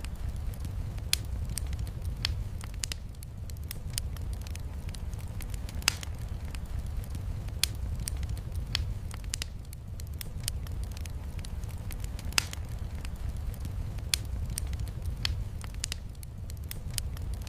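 Wood fire crackling in a fireplace: scattered sharp pops and snaps, several a second at the busiest, over a steady low rumble.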